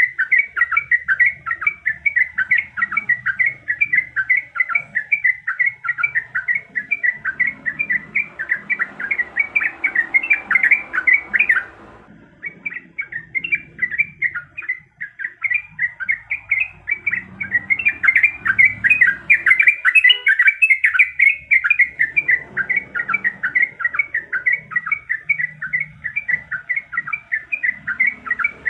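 Yellow-vented bulbul (trucuk) singing without let-up: a fast, continuous run of short chattering notes at a fairly steady pitch, breaking off briefly about twelve seconds in before resuming.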